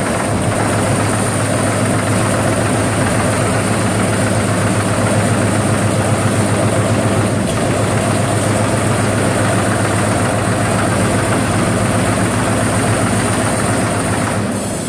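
TRUMPF Trumatic 5000R CNC punching machine running: a dense, rapid mechanical rattle over a steady low hum, with a thin high tone above. It changes slightly near the end.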